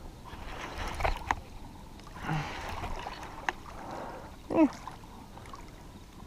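Water splashing and sloshing at the shoreline as a hooked flathead catfish is brought in, with a few sharp clicks and a brief falling squeak about two-thirds of the way through.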